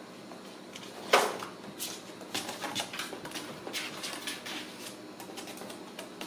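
Ragdoll kittens playing in and around a cardboard play cube on a tile floor: a sharp knock about a second in, then a run of quick scratching and rattling knocks from their claws and bumps against the cardboard.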